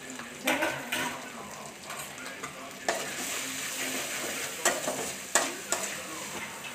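Masala of chopped tomato and spice pastes sizzling in hot oil in a metal kadai while a metal spatula stirs it, scraping and knocking against the pan about six times. This is the masala being fried down.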